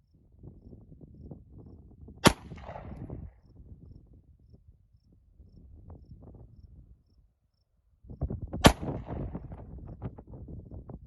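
Two shots from a Walther PPS compact pistol, about six seconds apart, each followed by a fading echo.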